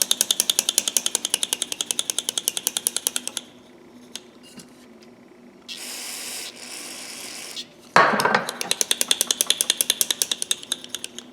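Rapid back-and-forth scrubbing of rusty pliers with a stiff hand brush, about a dozen strokes a second, in two runs. Between them comes a steady hiss of about two seconds from an aerosol can of carburetor cleaner being sprayed on.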